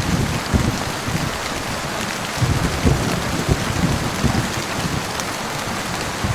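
Heavy rain falling steadily in a thunderstorm, with irregular low rumbles coming and going under the hiss of the rain.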